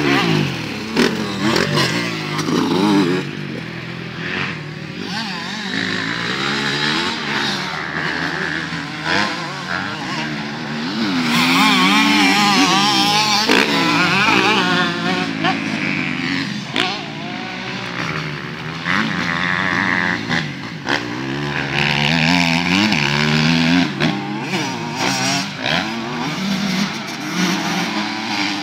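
Several motocross dirt bikes' engines revving hard and easing off as they ride the track and its jumps, the pitch climbing and dropping over and over, loudest around the middle.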